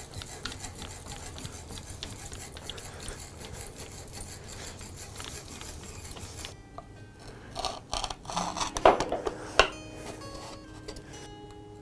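Barnes foot-powered mortiser cutting a mortise in wood: the chisel and treadle mechanism make a busy scraping clatter, then several loud knocks near the end. Music comes in over the last few seconds.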